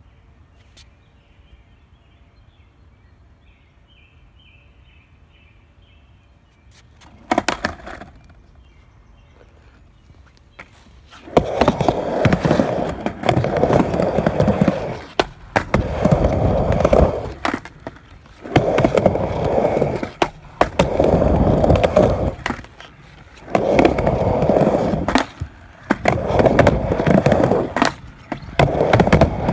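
Skateboard wheels rolling over a screwed wooden ramp surface, starting about eleven seconds in and coming in repeated runs of one to four seconds with short lulls between them as the board rides the ramp. Before that there is a single sharp knock about seven seconds in.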